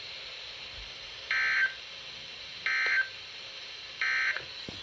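Emergency Alert System end-of-message data bursts: three short, identical squawks of digital tone about a second and a half apart over a steady radio hiss. They signal the end of the alert.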